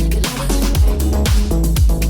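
Electronic house music with a steady kick drum about twice a second, a bassline and repeating chords.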